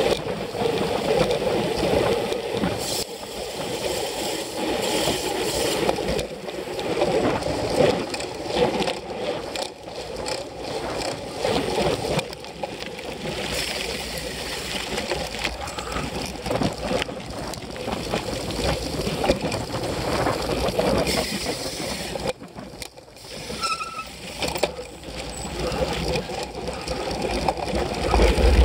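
Wind rushing over a camera microphone carried by a cyclocross bike or its rider at race speed, with tyre rumble and frequent knocks and rattles of the bike jolting over rough ground.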